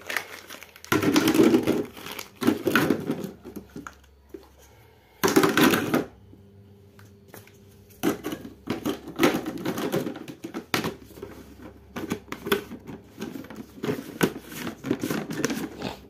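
Plastic coffee-machine spare parts clattering and knocking together as they are gathered by hand and packed into a clear plastic jar: a run of irregular clicks and rattles, with a quieter spell about six seconds in.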